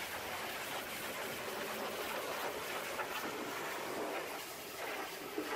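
Pressure-washer lance spraying a high-pressure water jet onto the mud-caked chassis and mudguard of a small dump truck: a steady spray noise.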